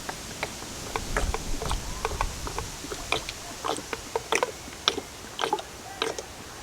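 Irregular small clicks and taps of hard plastic being handled, about twenty over several seconds: the oil filter cartridge and its O-rings being worked by hand.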